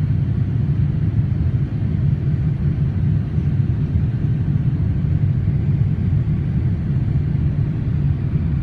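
Steady low rumble of cabin noise inside a Boeing 787-9 airliner climbing after takeoff: engine and airflow noise heard through the fuselage.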